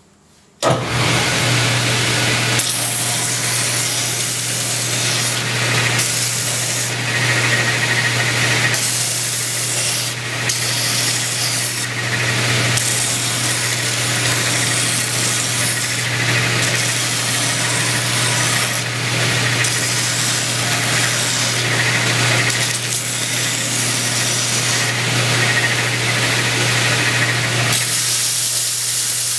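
Belt sander switched on about half a second in, its motor running steadily while plywood is sanded on the belt. The sanding noise swells and eases, with short dips as the wood is lifted and pressed back to the belt.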